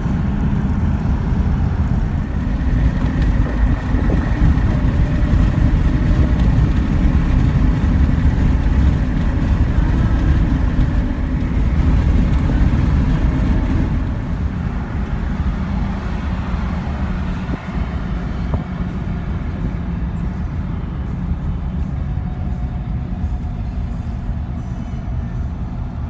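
A loud, steady low rumble with music underneath. The rumble eases a little about fourteen seconds in.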